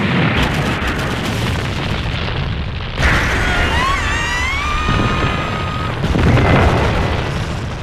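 A series of large pyrotechnic explosions: a long blast that keeps going, with a fresh blast about three seconds in and another swell around six seconds. A wavering, gliding tone sounds over the middle.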